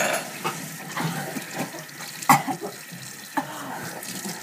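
Harsh coughing and sputtering from swallowing a spoonful of ground cinnamon in the cinnamon challenge: a sharp cough right at the start, a louder one a little past two seconds in, and gasping breaths in between.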